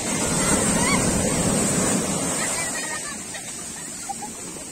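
Sea waves breaking and washing up over the sand at the water's edge. The surge is loudest over the first two seconds, then eases off as the water draws back.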